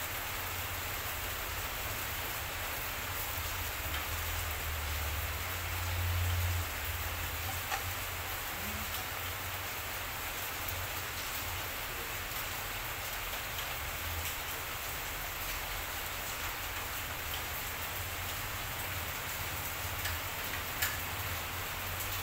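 Steady rain hiss with scattered faint drop ticks, and a low rumble swelling briefly about five to seven seconds in.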